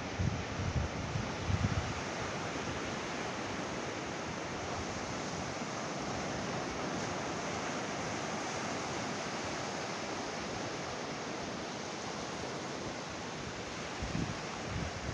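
Ocean surf breaking and washing on a beach, a steady rush, with gusts of wind buffeting the microphone near the start and again near the end.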